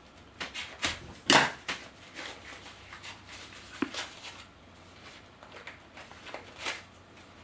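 Paper wrapping crinkling and rustling in scattered crackles as it is unwrapped by hand, with one louder sharp crackle about a second and a half in.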